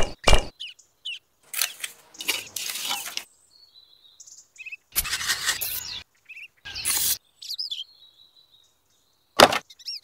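Small trowel scraping and spreading wet cement mortar over miniature bricks in a few short strokes, with birds chirping faintly in the gaps and a sharp tap near the end.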